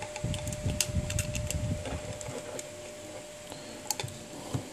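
Handling noise of smartphone parts as an LCD display module is pried off the phone's plastic frame: rubbing and scraping for the first two seconds, then scattered small plastic clicks and ticks, over a faint steady whine.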